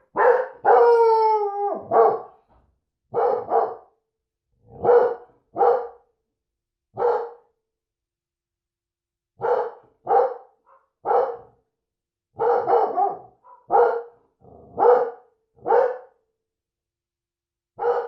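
Basset hound cross barking repeatedly, about fifteen deep barks at uneven gaps of one to two seconds. Near the start comes one longer bay that falls in pitch.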